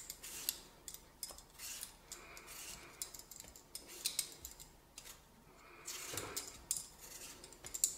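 Metal vegetable peeler scraping skin off a raw potato in short strokes at an irregular pace.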